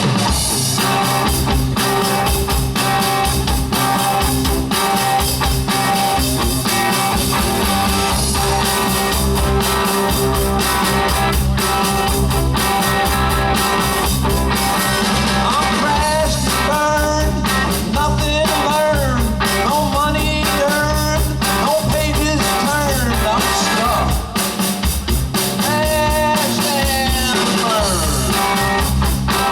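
Live rock and roll band playing a song with a steady drum beat, bass and electric guitar; a lead vocal comes in about halfway through.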